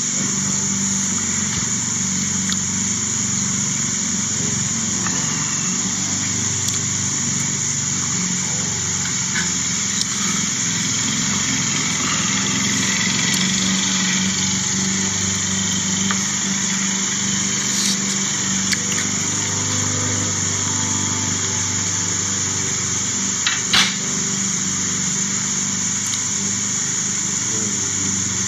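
Steady outdoor background with a distant motor's low, even hum and a high, unbroken buzz above it. A couple of short clicks near the end.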